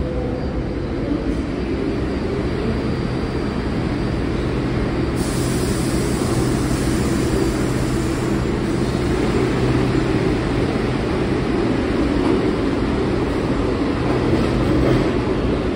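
New York City subway train running: a steady rumble with a low hum, turning hissier about five seconds in.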